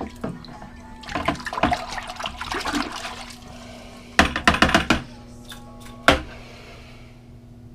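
Water splashing and pouring in short spells over a steady low machinery hum, with a loud clatter of handling about halfway through and a single sharp knock a second later.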